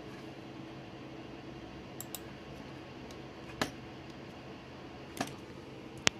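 Faint steady background noise with a few scattered sharp clicks: a close pair about two seconds in, single ones later, and the loudest near the end.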